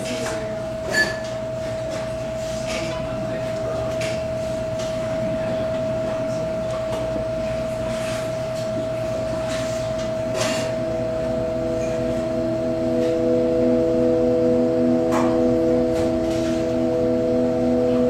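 Live noise-music set opening with a steady held drone tone over a low hum, with scattered clicks and knocks; about ten seconds in, several lower sustained tones join and the sound swells slightly.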